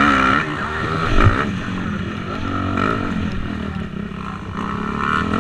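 Motocross bike engine running, its pitch rising and falling as the throttle is opened and closed. It eases off in the middle and picks up again near the end.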